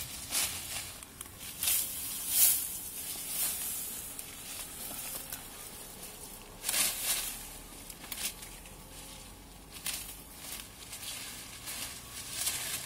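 Grapevine leaves and side shoots rustling as they are pulled off by hand, in irregular bursts of rustle a second or so apart.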